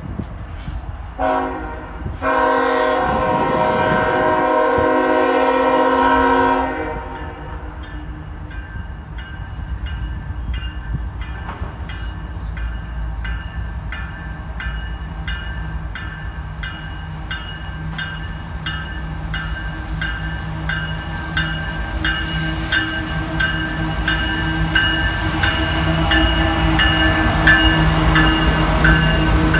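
Freight train's diesel locomotive horn: one short blast, then one long blast of several notes. The two CSX diesel locomotives then draw near and pass, their engines droning steadily and getting louder, with the wheels clicking evenly over the rail joints.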